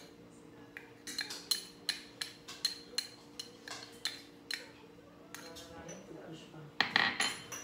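Metal spoon clinking and scraping against a small cup: about a dozen quick, light clinks at roughly three a second, then a louder clatter near the end.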